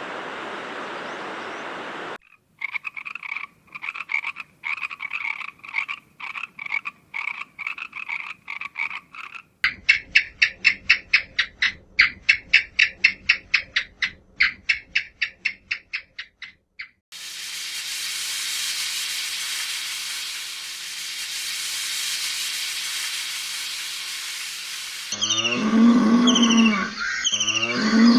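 A string of short animal-sound clips: pulsed croaking calls repeating several times a second, a steady hiss, then low drawn-out animal calls near the end.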